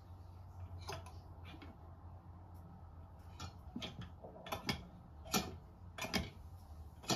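Kohler sink's pop-up drain stopper being worked up and down with its lift rod: a run of sharp clicks and clacks, more frequent and louder in the second half, as the stopper now opens and closes properly. A faint steady hum lies underneath.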